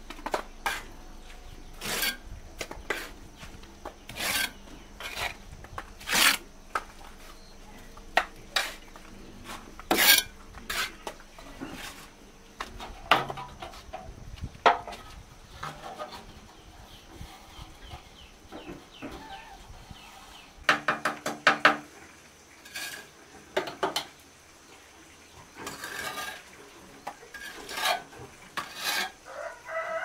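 Irregular scraping and knocking from hand work, a stroke every second or two. A quick run of clucking calls comes about two-thirds of the way in and again at the end, fitting farm chickens.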